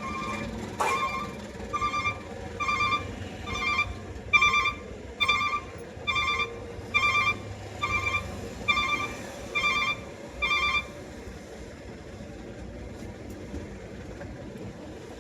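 An electronic warning beeper sounds a clear, steady beep a little faster than once a second, then stops about two-thirds of the way through. Beneath it runs the steady hum of passing road traffic, with a sharp click about a second in.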